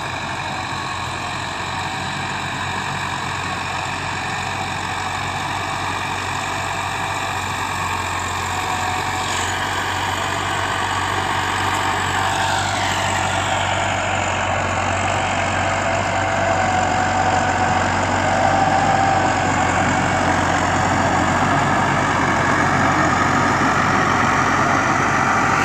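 Massey Ferguson 385 tractor's four-cylinder diesel engine running steadily under load while driving a rotary tiller through the field. It grows gradually louder as the tractor comes closer.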